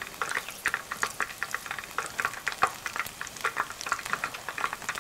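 Small batter-coated fish deep-frying in hot oil over medium heat: a dense, irregular sizzle of crackles and pops.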